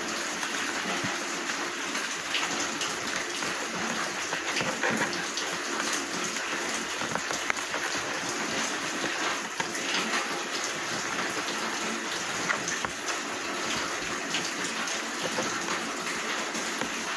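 Steady hiss of rain, with a few faint crinkles of an A4 paper sheet being folded.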